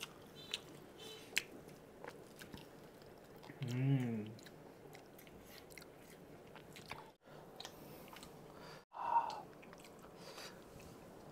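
Close-miked chewing and wet mouth sounds of people eating masala pav, a soft butter-fried bread roll stuffed with spiced vegetables, with small smacks and clicks throughout. A short hummed voice sound comes about four seconds in, and the sound drops out briefly twice near the end.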